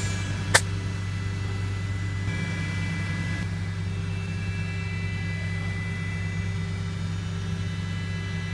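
Steady low workshop hum with a few faint higher tones over it, and one sharp click about half a second in.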